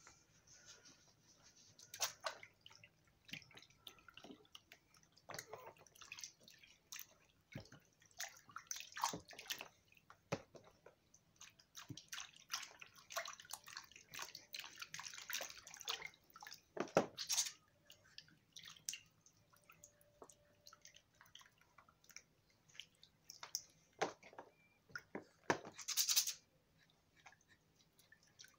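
Water splashing and trickling in a plastic baby bathtub as a hand washes a baby, with scattered small splashes and drips at irregular intervals.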